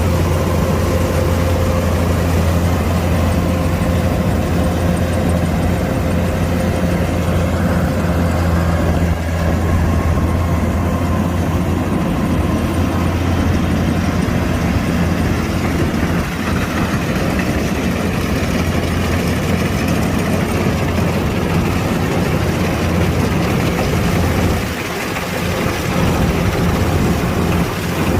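Kubota DC-105X combine harvester's diesel engine running steadily with a deep, even hum, dipping briefly in level near the end.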